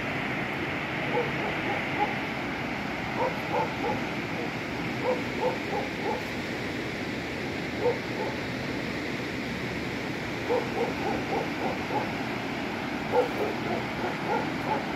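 Steady rushing noise of a muddy, flood-swollen river, with short yelping calls over it in small clusters every second or two.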